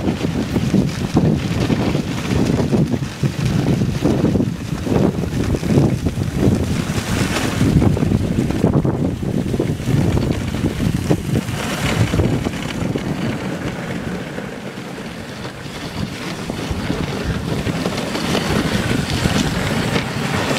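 Wind rumbling over the microphone of a moving dog sled, an uneven rushing noise that eases briefly about two-thirds of the way through.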